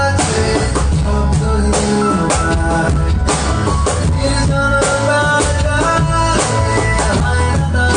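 Instrumental music with a steady drum-kit beat of kick and snare under bass and sustained pitched instruments, with no singing.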